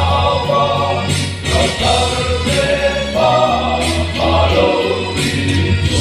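A men's choir of about twenty voices singing a sacred song in harmony, the sustained chords shifting every second or so.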